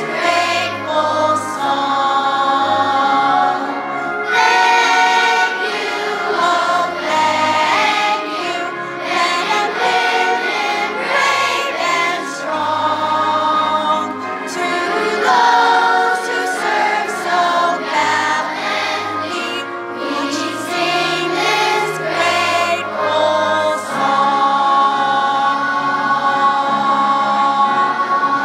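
Children's choir of fourth-grade students singing a song in unison, with instrumental accompaniment holding low notes beneath the voices.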